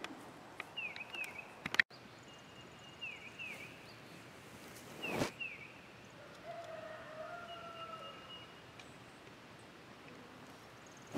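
Faint rural outdoor background with small birds chirping: short high calls, often in pairs, repeating through the quiet. A single soft knock comes about five seconds in, and a faint, longer pitched call sounds a little later.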